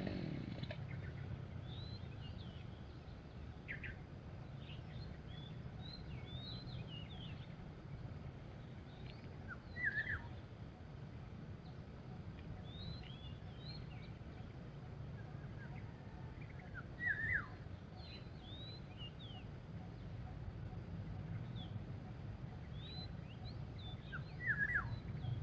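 Birds calling outdoors: many short, high chirps and quick up-and-down whistles, with louder calls about ten seconds in, again about seventeen seconds in, and near the end. A steady low background rumble runs underneath.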